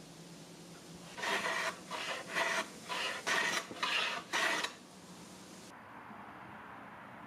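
A hand tool worked back and forth on wood in about seven quick strokes, scraping, starting about a second in and stopping a little before five seconds.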